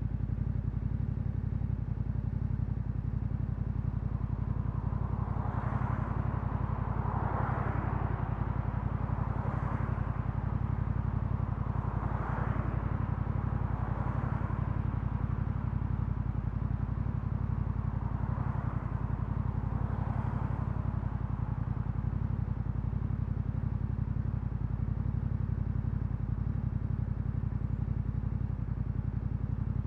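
Yamaha Ténéré 700's parallel-twin engine running at a steady, even pitch through an Akrapovič exhaust. Several soft swells of hiss rise and fade over it in the first two-thirds.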